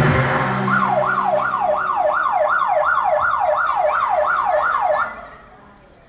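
Electronic dance music with a siren-like effect, a fast falling whoop repeated about three times a second. The music cuts off about five seconds in.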